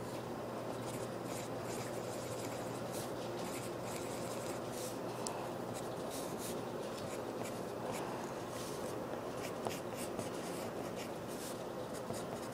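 A pen scratching on paper in many short drawing strokes, over a steady background hiss.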